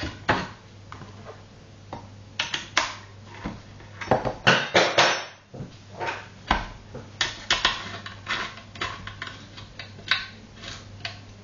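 Irregular clinks and knocks of a climbing hold and an M8 bolt being handled and fitted against plywood, some in quick clusters.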